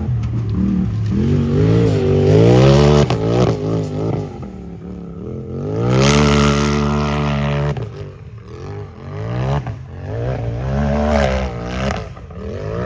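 Unlimited-class race UTV engine revving hard under load, its pitch rising and falling again and again as the driver works the throttle, with one long high rev held for about two seconds near the middle.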